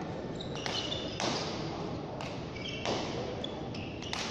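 Frontball rally: the ball cracks sharply off the front wall and floor roughly every second, with brief high squeaks of shoes on the court and a murmur of spectators behind. The cracks echo in the large hall.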